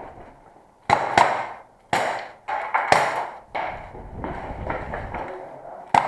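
Airsoft revolver firing a string of sharp shots at uneven spacing, about seven in all, with a gap of roughly two seconds before the last.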